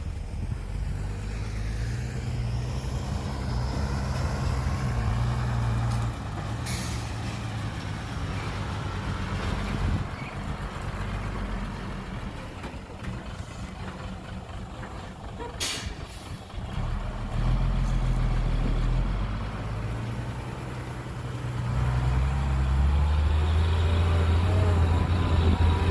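Heavy diesel engines of a bulldozer and dump truck running at a fill site, the engine note shifting with load and getting louder and lower near the end. Two short, sharp hisses cut in, about seven and sixteen seconds in.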